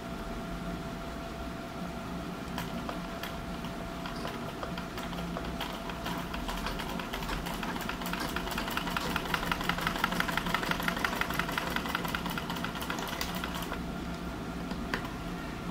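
Straight-stitch sewing machine stitching through cotton fabric: a rapid, even clatter of the needle and feed that starts about six seconds in, is loudest in the middle and stops near the end. A few light clicks come before it.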